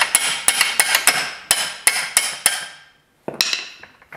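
Repeated sharp, ringing metal-on-metal blows on a ring spanner fitted to a VW Beetle front beam's centre torsion-bar locating bolt: about ten quick strikes, a short pause, then one more. The spanner is being shocked to break the stuck bolt loose.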